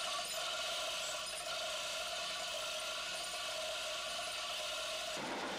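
Electric overhead chain hoist running, a steady mid-pitched whine over mechanical noise, stopping abruptly about five seconds in.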